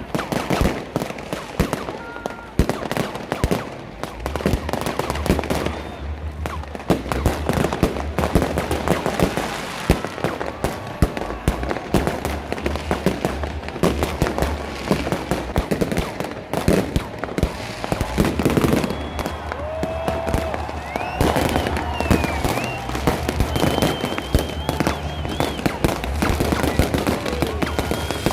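Fireworks going off in a dense, continuous barrage, many bangs and crackles overlapping, with a few short whistling glides about three quarters of the way through.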